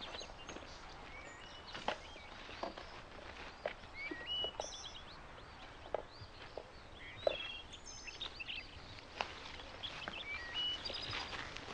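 Birds chirping and whistling, with many short, high calls throughout, over a quiet outdoor background. A few scattered soft knocks, likely footsteps, are heard among the calls.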